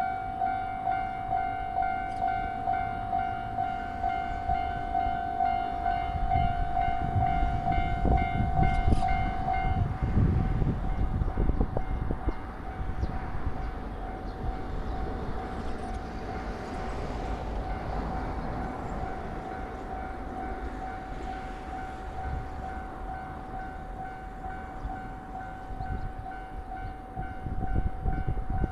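Japanese level-crossing warning bell ringing in steady repeated dings, about one and a half a second, while an electric train passes with a low rumble of wheels on rails. The rumble builds to its loudest about a third of the way in, then carries on more quietly under the bell.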